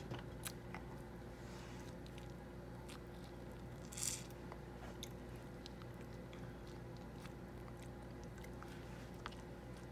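A toddler biting and chewing juicy orange wedges close to the microphone: small wet clicks and smacks, with one louder juicy bite about four seconds in.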